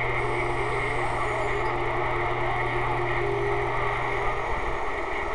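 Texas Ranger TR-696F SSB CB radio receiving 11-metre skip: a steady rush of band static with faint, garbled distant voices under it. A faint steady whistle runs through the first few seconds.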